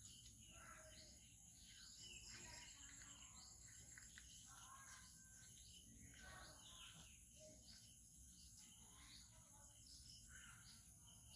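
Faint birdsong: many short chirps and calls from several birds, over a steady high-pitched insect hum and low background rumble.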